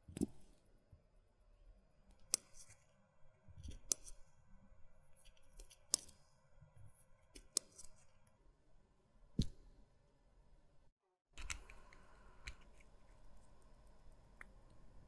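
Sharp, isolated small clicks, about one every second and a half, as a watch dial is taken off and an Omega calibre 1120 automatic movement is handled. The sound cuts out briefly about 11 seconds in, then faint steady room noise with a few soft ticks.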